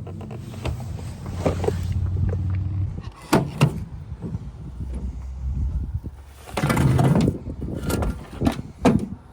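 A car engine running steadily for about three seconds, then a series of separate knocks and thumps, the loudest about seven seconds in.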